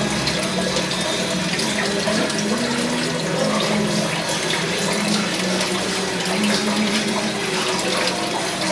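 Aquarium water bubbling and splashing steadily from the tank's aeration or filter return, with a low hum underneath.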